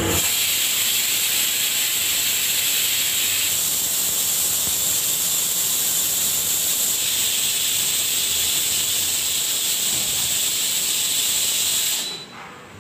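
Pressure cooker on a gas stove venting steam through its weight valve with a loud, steady hiss that cuts off suddenly near the end.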